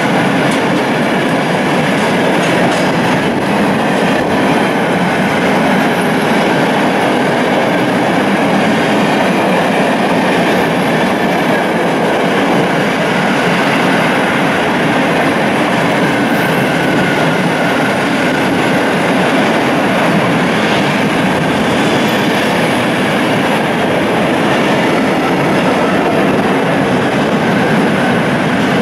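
Long freight train of empty flat wagons passing close by at speed: steady, loud noise of wheels on rail.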